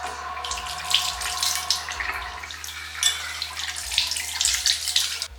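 Water running from a tap into a sink and splashing, cut off near the end.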